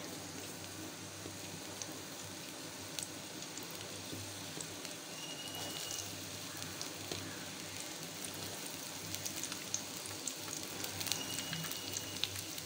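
Chopped onions frying in hot oil in a kadai: a quiet steady sizzle with scattered crackles that come more often near the end.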